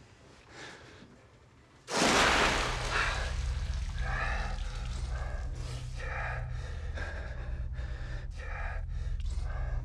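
A sudden splash of water about two seconds in, then a man's repeated sharp gasps and heavy breaths, about one a second, over a low steady drone.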